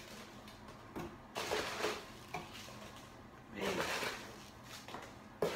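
Two people sniffing at a bottle in turn: a sharp click about a second in, then two short sniffs, the second near four seconds in.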